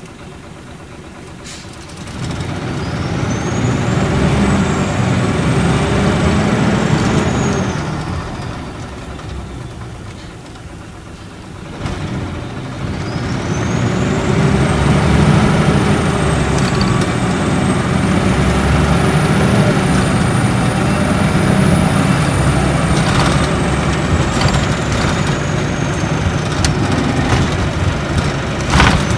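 Nissan Diesel Space Arrow RA coach's inline-six turbo diesel, heard from inside the cabin, pulling hard through its torque-converter automatic, with a high turbocharger whistle that rises with the engine. The bus eases off about eight seconds in, the whistle falling away, then accelerates again with the whistle climbing, holding, and sliding down near the end. A sharp click comes just before the end.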